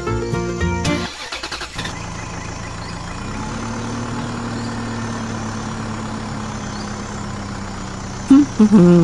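Steady motor hum of a DIY miniature toy tractor running, with an even low tone that steps up slightly about three seconds in. Music plays in the first second, and loud warbling sounds break in near the end.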